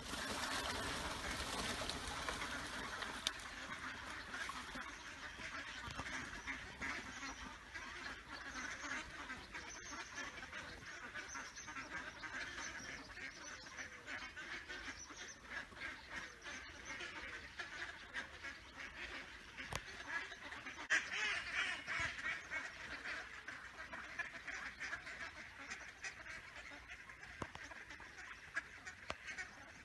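A large flock of ducks and ducklings quacking and chattering continuously, many calls overlapping, a little louder near the start and again about two-thirds of the way in.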